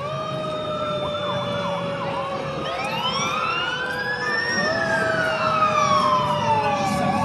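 Several emergency-vehicle sirens sounding at once from vehicles passing by: a held tone, quick short sweeps in the first couple of seconds, and a slow wail that rises for about a second and a half and then falls away.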